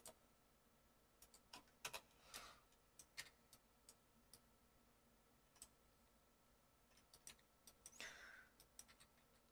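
Faint, scattered clicks of a computer keyboard and mouse, a dozen or so spread irregularly over the seconds, against near silence.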